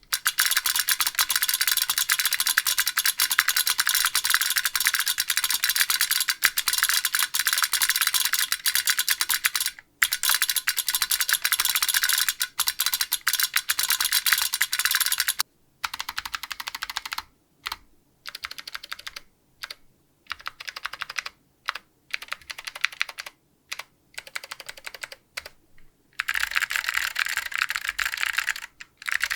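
Fast typing on a custom keyboard with clicky Alps SKCM Amber switches, Apple AEK II keycaps and a 1.2 mm aluminium plate, with a double solenoid clacking along with the keystrokes. About fifteen seconds in, the typing breaks into short spurts of key presses with silent gaps, then runs dense again near the end.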